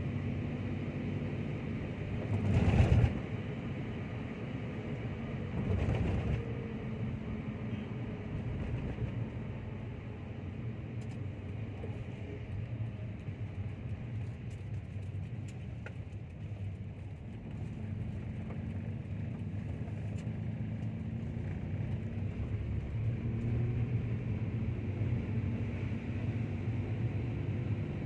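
Steady low rumble of a car's engine and tyres on a wet road, heard from inside the cabin while driving. Two brief louder rushes come about three and six seconds in, the first the loudest.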